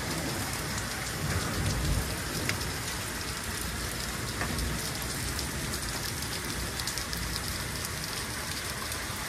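Steady rain falling on leaves and pavement, with a low rumble swelling briefly about a second and a half in.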